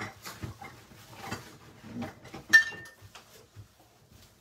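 Kitchenware handled on a stove top: light knocks and scrapes, and about two and a half seconds in one sharp metallic clink that rings briefly.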